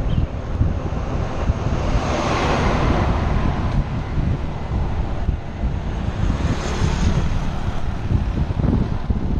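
Wind buffeting the microphone of a camera on a moving road bike, a constant low rumbling rush with a louder swell of hiss about two seconds in.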